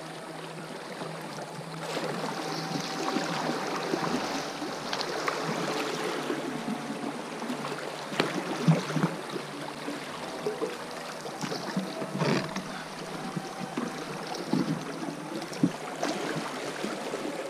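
Fast shallow river water rushing and splashing around an inflatable boat as it drifts through a riffle, louder from about two seconds in, with a few sharp knocks near the middle and end.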